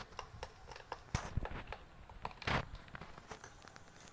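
Light clicks, taps and crinkling from hands handling slime-making materials, with two louder rustling scrapes about a second and two and a half seconds in.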